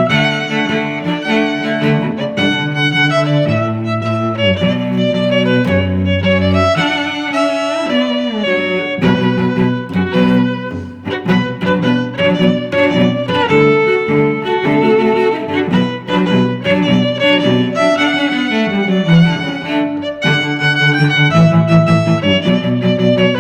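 Background music played on bowed strings, a violin melody over cello lines, with notes changing in steady succession.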